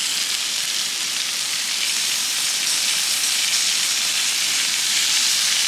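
Meat frying with a steady, even sizzle.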